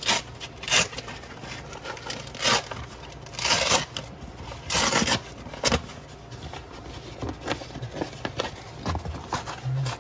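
Irregular bursts of rustling and crinkling from a coilover protective cover being handled and unfolded, with a few scrapes; the longest bursts last about half a second.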